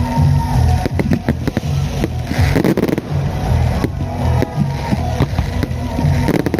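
Fireworks going off: many sharp bangs and crackles, with a denser crackling swell a couple of seconds in, over music with a heavy low beat.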